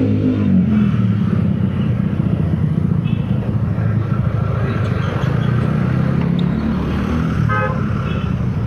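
Street traffic heard from a bicycle on a busy city road: a motor vehicle's engine rises in pitch as it passes in the first second, then a steady, loud low rumble of engines and road noise.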